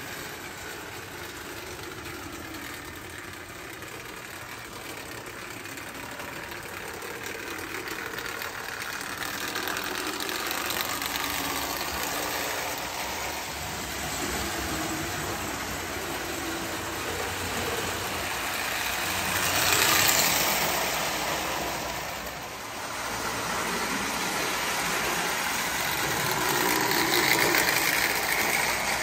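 Prewar Marx Commodore Vanderbilt tinplate electric locomotive pulling its red eight-wheel passenger cars around the track: a steady motor whir with the wheels clattering over tinplate rails. It grows louder as the train comes close, loudest about two-thirds of the way in and again near the end.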